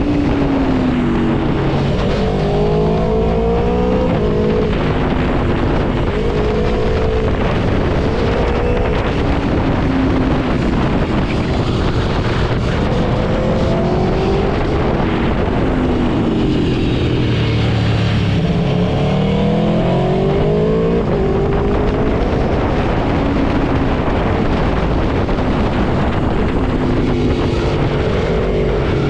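Aprilia Tuono V4 motorcycle's V4 engine pulling hard through the gears again and again, its pitch climbing and then dropping back at each shift, over a steady rushing noise.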